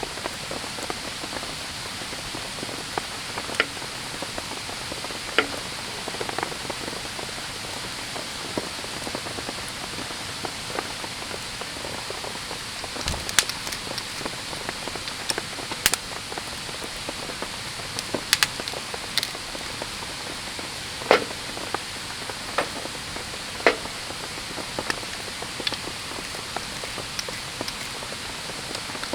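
Wood campfire crackling: irregular sharp pops and snaps every few seconds over a steady hiss.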